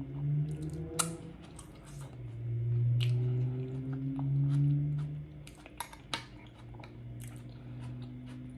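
Closed-mouth humming ("mmm") of enjoyment while chewing, in long low hums of a second or more, with a few sharp clicks of a metal spoon against the glass bowl.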